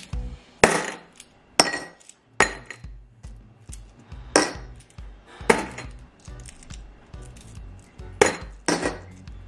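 Metal coins dropped one by one into a small ceramic bowl, each landing with a sharp clink; about seven loud clinks a second or so apart, with fainter ones between.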